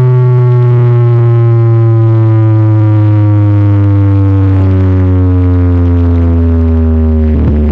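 A huge car sound system's speaker wall plays one long, loud, distorted bass tone that slowly falls in pitch. Near the end it breaks into electronic dance music with a steady beat.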